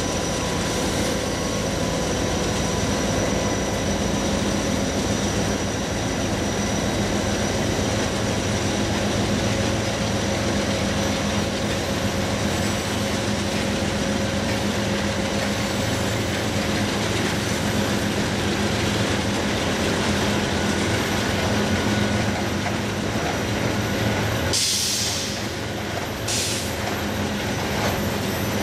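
Freight train rolling past close by: the steady rumble and rattle of loaded trash-container cars and tank cars on the rails, with faint steady tones in it. Near the end there are two short, sharp hisses.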